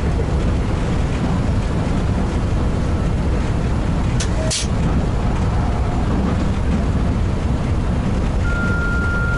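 Steady loud running noise inside the cab of a ChS200 electric locomotive at high speed. A couple of brief clicks come about four and a half seconds in, and a steady high tone starts near the end.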